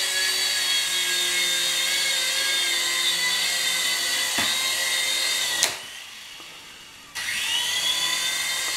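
Small electric motors of a toy twin-rotor RC helicopter whining as its rotors spin. About three-quarters of the way through a sharp tap is heard as it comes down, the whine cuts out for about a second and a half, then spins back up with a rising whine.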